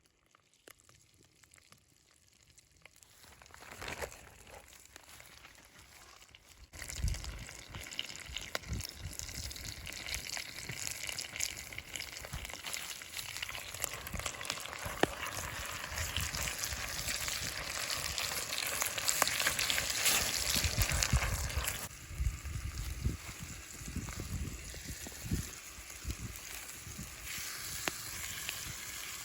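Food sizzling in a hot cast-iron pan, a dense crackling fry that starts abruptly about seven seconds in and eases off somewhat around twenty-two seconds.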